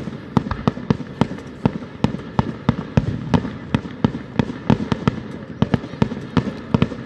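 Fireworks display: aerial shells bursting in a rapid, irregular series of sharp bangs, several a second.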